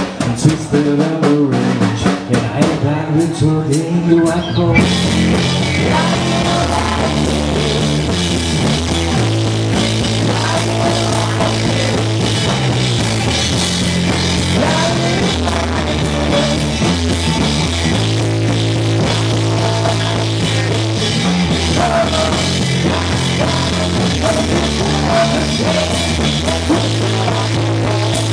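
Live rock band playing, with drum kit and electric guitars. After a sparser, choppy opening, the full band comes in about five seconds in and plays on steadily.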